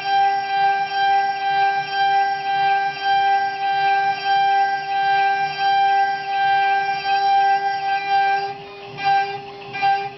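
CNC spindle turning a 1/4-inch two-flute endmill at 24,000 RPM, milling aluminum in a loud, steady high-pitched whine with the cutting tone pulsing about twice a second as the high-speed toolpath loops. Near the end the cut goes quieter and choppy.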